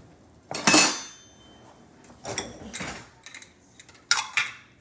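Kitchen utensils and plastic measuring cups clattering as a drawer is rummaged through. A loud clatter with a short ringing tone about half a second in, then softer knocks and one sharper knock near the end.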